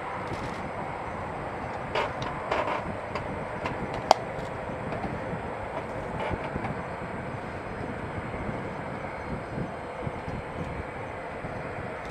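Jet aircraft engines running at a steady, distant rumble, with a few sharp clicks about two and four seconds in.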